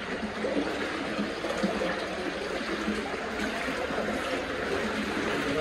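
Water running steadily through an underground tunnel, an even rushing trickle.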